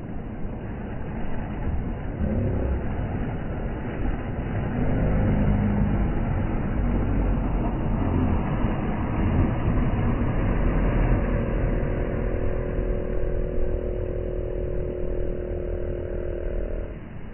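Outboard boat motors running in the shallows over a steady low rumble of wind and water. From about eleven seconds in a steady engine tone holds, then cuts off just before the end.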